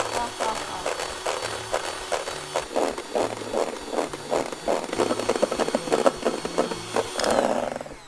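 Electric hand mixer whipping egg whites in a stainless steel bowl: a steady motor whine with the beaters clattering against the metal bowl, switched off shortly before the end once the whites are stiff.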